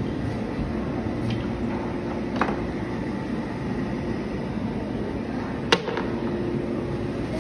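Two sharp clacks of wooden toy train track pieces or blocks being set down on a tabletop, the second much louder, over a steady background hum.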